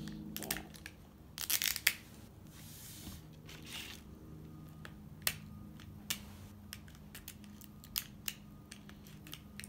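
Plastic toy packaging being torn and crinkled open by hand, a burst of tearing about one and a half seconds in, then a few sharp clicks and snaps.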